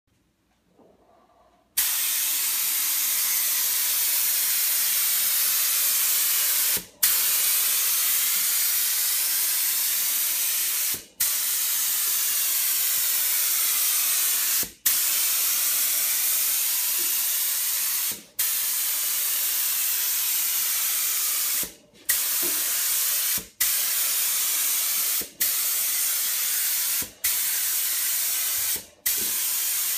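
Gravity-feed spray gun hissing as it sprays activator over hydrographic film floating in the dip tank. The hiss starts about two seconds in and runs as long steady passes, broken nine times by short gaps as the trigger is let off, the gaps coming closer together toward the end.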